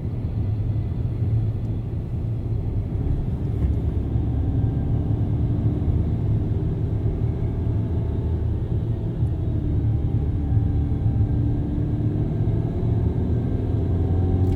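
2011 Skoda Superb making a weird clutch noise: a steady low rumble with a faint whirring tone that comes and goes, a little like a concrete cutter's rotating disc.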